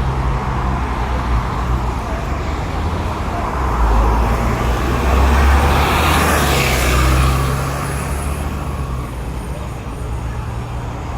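Road traffic with a vehicle engine running close by in a steady low hum, swelling louder as a vehicle passes about halfway through, then easing off.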